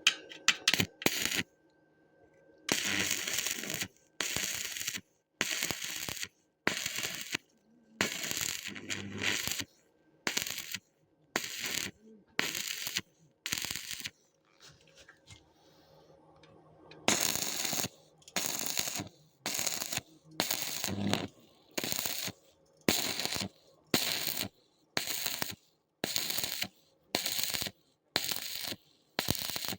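Electric arc welding crackling in short bursts, the arc struck and broken again about once a second, with a pause of a few seconds partway through.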